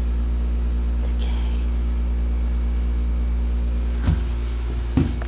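Steady low hum with a row of evenly spaced overtones, with two brief knocks about four and five seconds in.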